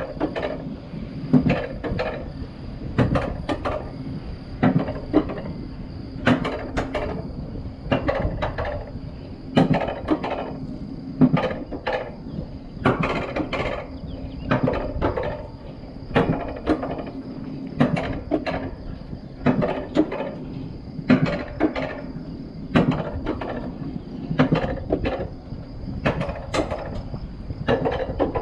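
Wiegand alpine coaster sled hauled slowly up the lift section: a steady hum with irregular knocks and rattles from the sled running on its rails, several every few seconds.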